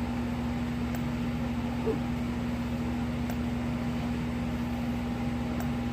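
Faint sharp ticks of a Whelen VSA-24 fire alarm strobe firing, three of them about two and a half seconds apart, one flash every couple of seconds. Under them runs a steady low electrical hum.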